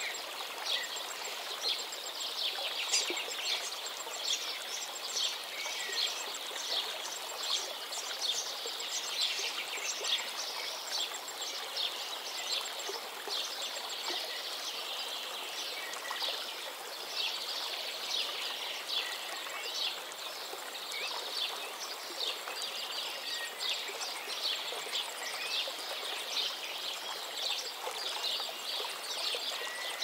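A chorus of songbirds chirping and trilling continuously in quick high notes, over a steady rushing background noise like flowing water.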